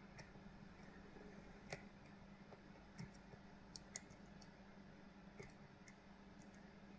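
Faint, sparse clicks of a lock pick probing and setting the pins of a Kale Kilit 164 BNE cylinder under tension, about five clicks a second or so apart, over a low steady hum.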